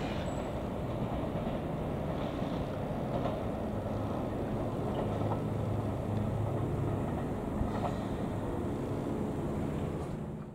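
JR 211 series electric multiple unit train running on after pulling out of the station: a steady low rumble of motors and wheels on the rails, with a few faint clicks. It fades out near the end.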